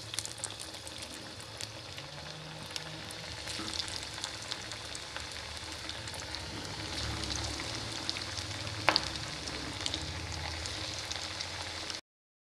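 Breaded beef cutlets sizzling and crackling in hot oil in a pan, with scattered small pops and one sharper tick about nine seconds in. The sound stops abruptly near the end.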